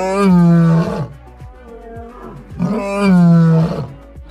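Lion roaring twice, each roar about a second long, with background music underneath.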